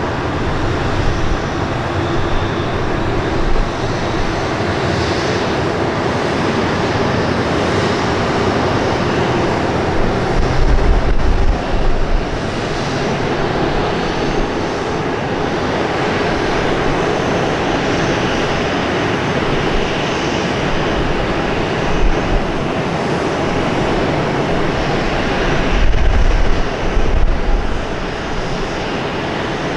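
Jet engines of a Boeing 737-800, its CFM56-7B turbofans, running with a steady rushing noise. Low rumbling swells come about a third of the way in and again near the end.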